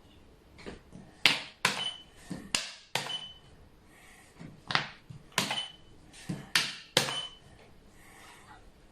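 Xiangqi pieces being set and slapped down on the board: a quick series of about ten sharp clacks, several with a brief ringing ping, as moves are played in fast succession.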